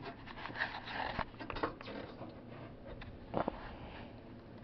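Faint rustling and light clicks of hands handling the wires of a car's wiring harness, with a brief louder rustle about three and a half seconds in.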